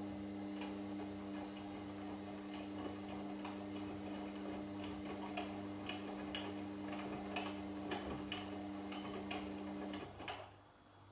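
Washing machine running: its motor hums steadily with irregular ticks and clicks over it. The hum cuts off about ten seconds in, followed by one last knock.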